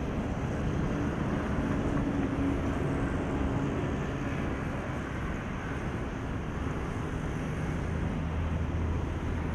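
Steady low engine drone under a wash of outdoor noise, its hum growing a little stronger near the end.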